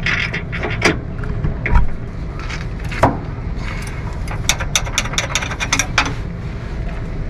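Hand wrench tightening bolts on the upper SumoSpring mount under the RV's front frame: metal clicks and knocks, with a quick run of ratchet clicks about four and a half seconds in.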